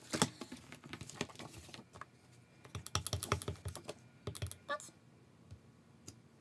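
Scattered light clicks and taps of plastic on plastic and on the tabletop: an ink pad being uncapped and a clear acrylic stamp block being handled, inked and pressed down onto card.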